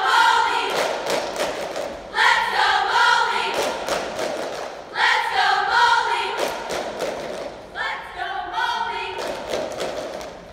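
A cheerleading squad shouting a cheer in unison, in short phrases about every three seconds, with sharp claps and thuds in between. The shouts echo in a large hall.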